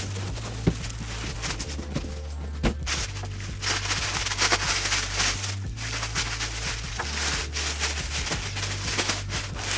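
Clear plastic packaging bag rustling and crinkling irregularly as a foam mattress is pulled out of it, over quiet background music with a low bass line.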